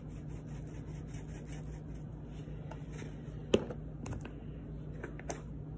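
Black pepper being shaken from a spice shaker over raw chicken, a faint rapid rustle, then a few light clicks and knocks as the containers are handled, the sharpest about three and a half seconds in.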